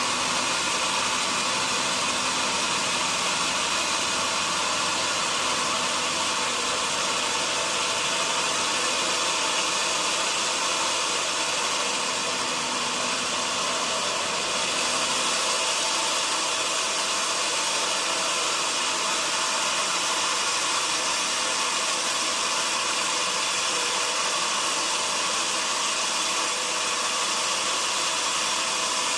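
Sawmill machinery running steadily: an even, high hiss with a faint steady hum through it.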